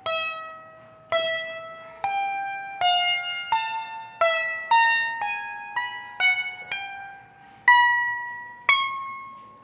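Strings of a fifteen-string plucked instrument picked one at a time, about thirteen ringing notes in turn, each dying away before the next. The pitch climbs step by step as the strings get shorter, showing that a shorter string sounds a higher note.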